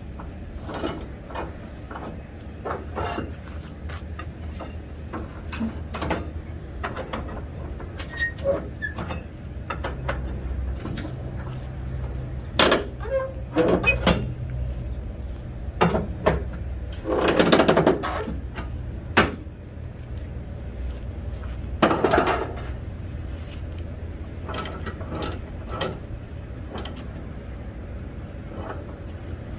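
Irregular clinks and knocks from handling load-securing gear, with a few louder scraping rushes, over a steady low rumble.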